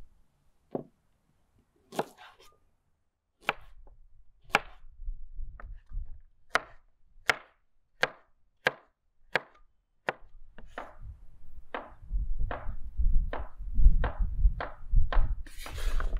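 Cleaver slicing carrots into rounds on a wooden cutting board: a series of sharp knocks as the blade goes through and strikes the board, coming a little faster in the last few seconds.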